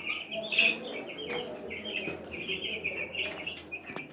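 A brood of week-old broiler chicks peeping: many short, high chirps overlapping without a break, with a couple of faint knocks among them.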